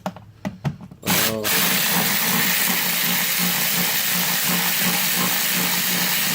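A few light clicks, then a power drill starts about a second in and runs steadily, backing out a bolt.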